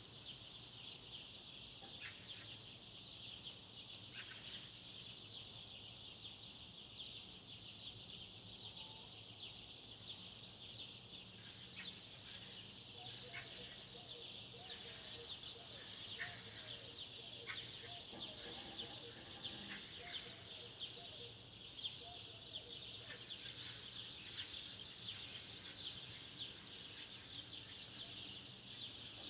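A dense chorus of many small birds chirping and twittering without pause, all high-pitched, with fainter lower calls now and then around the middle.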